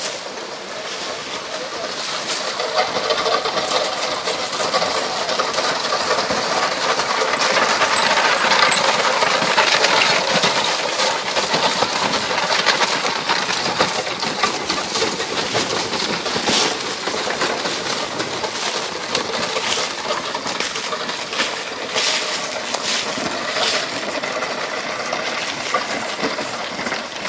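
A horse-drawn cannon and limber on iron-rimmed wooden wheels rolling over a gravel trail among walking horses: a steady crunching rattle with jingling metal and clopping hooves, loudest around the middle.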